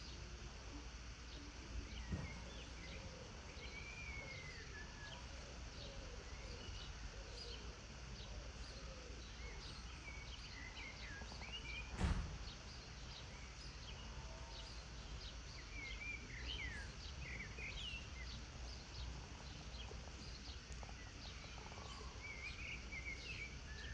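Songbirds chirping and twittering, many short calls throughout, over a steady low background hum. A single sharp knock stands out about twelve seconds in.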